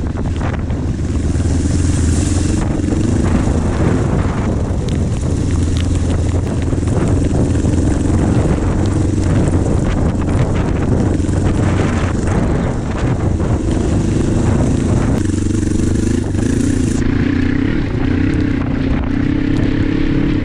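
Kawasaki KLE500 parallel-twin engine running under load on a ridden dual-sport motorcycle, its note wavering with the throttle and shifting about fifteen seconds in, over a steady hiss that stops a couple of seconds later.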